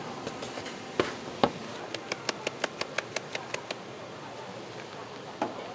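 Metal utensils knocking on a stainless steel work tray: two sharp knocks about a second in, then a quick even run of about fifteen light clicks, roughly eight a second, and one more knock near the end.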